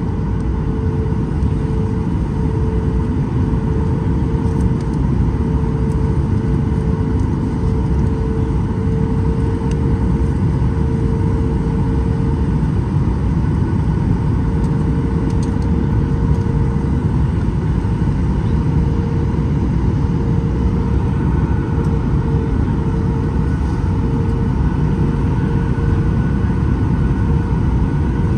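Cabin noise inside a Boeing 737 on final approach: the engines and airflow make a steady, deep rush with a steady droning tone under it. A higher tone becomes clearer about two-thirds of the way through.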